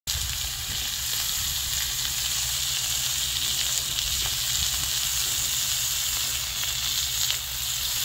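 Pork belly slices sizzling steadily on a hot stone slab over charcoal, fat frying with a few small crackles.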